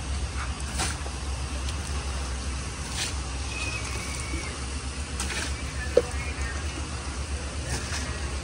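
Water flung by the mugful splashing against a truck's front, a few splashes some two to three seconds apart, over a steady low rumble.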